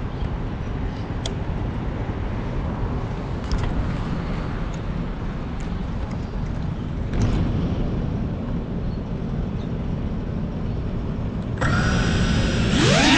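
Low rumbling background noise with a few faint clicks, then about 11.5 s in an FPV drone's brushless motors spin up with a sudden steady whine. Just before the end the whine rises in pitch as throttle is applied for take-off.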